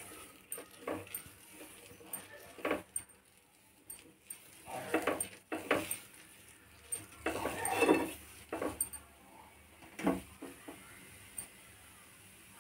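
Steel ladle scraping and swishing over a non-stick dosa tawa as batter is spread in circles, in short irregular strokes, the loudest about two-thirds of the way through.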